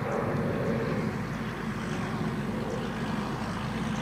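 Steady low rumble of a distant motor, even in level throughout.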